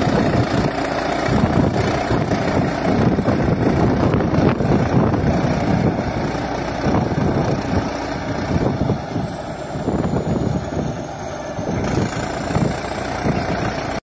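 Crawler bulldozer's diesel engine running steadily as the machine crawls over loose dirt, with a thin high whine above it that sags in pitch about nine seconds in and comes back near twelve seconds. The engine grows a little quieter after about eight seconds.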